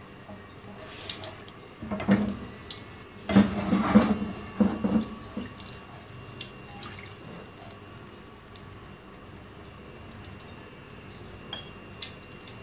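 Green cardamom pods crackling in hot ghee, with scattered small pops. A silicone spatula stirs and scrapes the pan briefly, from about two to five seconds in.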